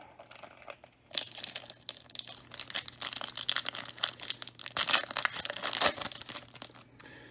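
Trading-card booster pack wrapper being torn open and crinkled by hand: a dense run of crackling, rustling strokes that starts about a second in and dies away near the end.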